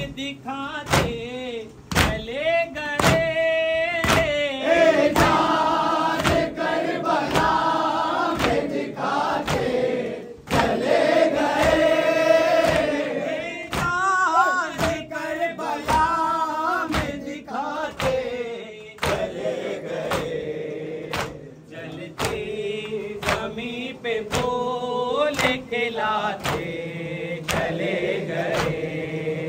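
Mourners chanting a nauha (Shia lament) in chorus, with hands striking the chest (matam) in a steady rhythm under the singing.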